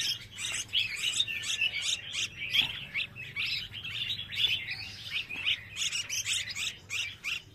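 A group of caged young songbirds chirping busily: short high chirps, several a second, overlapping one another without a break.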